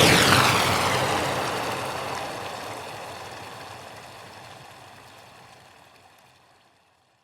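A loud rushing, whooshing noise with a sweeping, phasing swirl that fades out steadily and evenly to silence over about seven seconds.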